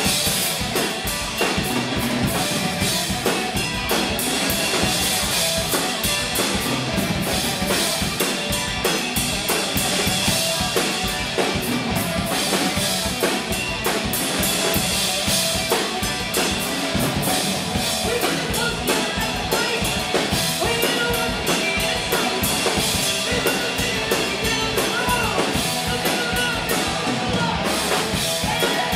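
Live rock band playing loudly: a drum kit keeping a steady beat under electric guitars and bass guitar.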